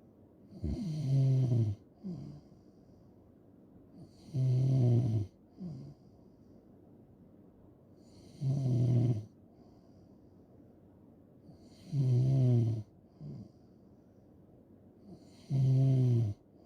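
A person snoring loudly in a regular rhythm: five long, buzzing snores about every three and a half seconds, each followed by a short, softer sound.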